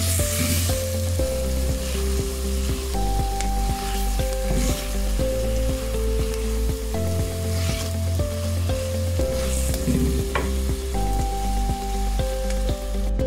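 Chicken pepper fry sizzling in a hot clay pot while a wooden spatula stirs and scrapes through it, with swells every few seconds. Background music with held notes over a bass plays throughout.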